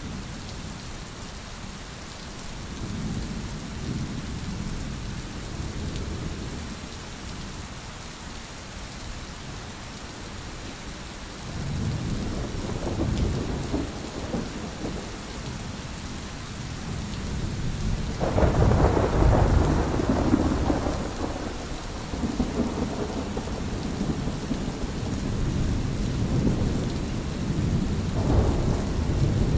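Thunderstorm: steady rain with thunder rumbling several times, the loudest and longest peal about two-thirds of the way through.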